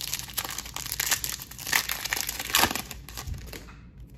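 Foil wrapper of a Panini Select football card pack being torn open and crinkled by hand: a dense crackling that stops about three and a half seconds in.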